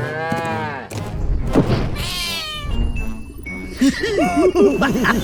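Cartoon animal calls and sound effects over background music: a long drawn-out call, a thump, a falling whistle, then quick bouncing warbling calls near the end.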